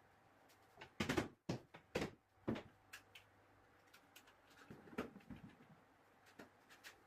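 Wooden knocks and clunks of a shelf being fitted into a cabinet: a quick cluster of sharp knocks about a second in, three more single knocks over the next second and a half, then another around five seconds in.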